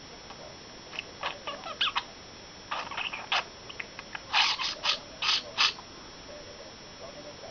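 Pet budgerigar chattering: a run of short, high chirps and warbles lasting about five seconds, the loudest calls coming in a cluster a little past the middle.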